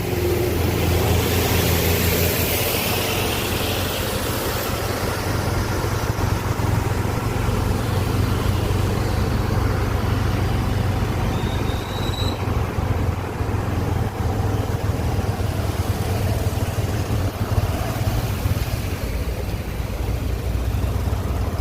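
A road vehicle's engine running steadily with a low hum, under road and wind noise.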